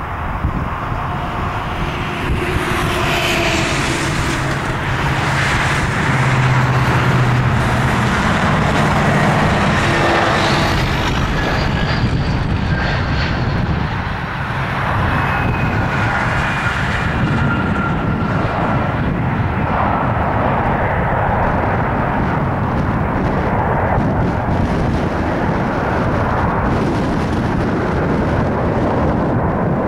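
Airbus A320 jet engines whining and rumbling on approach and touchdown, with fan tones that slide down in pitch as the airliner passes about halfway through. A steady, slightly louder roar follows as it rolls out down the runway.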